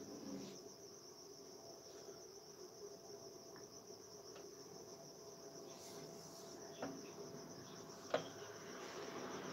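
Faint, steady high-pitched trill of crickets chirping, with a couple of soft clicks near the end.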